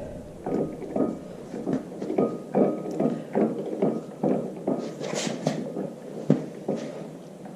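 Paper and tape being peeled off and handled, a run of short rustling strokes about two a second.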